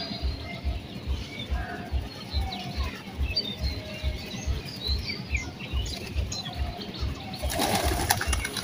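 Small birds chirping in short calls, then near the end a loud rush of domestic pigeons' wings flapping as two pigeons flutter up in a scuffle.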